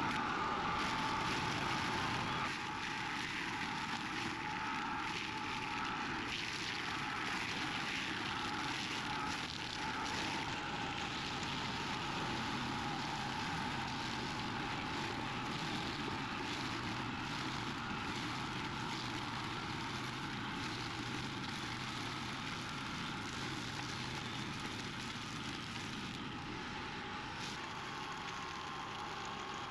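Thirty-year-old Kioritz hammer-knife mower running steadily, its flail rotor shredding thick Simon bamboo culms, with a steady whine over the engine noise.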